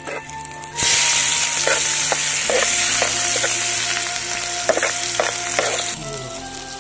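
Hot oil in an aluminium pan bursting into a loud sizzle as chopped onion is dropped in about a second in, with a steel ladle stirring and clinking against the pan. The sizzle eases to a quieter frying hiss near the end.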